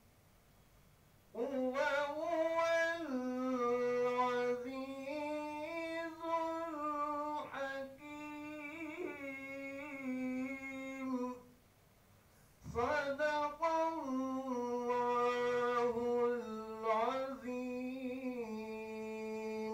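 A man singing unaccompanied into a microphone in long, drawn-out melodic phrases with held notes and slow glides. There are two phrases, the first starting about a second in and the second after a short pause midway.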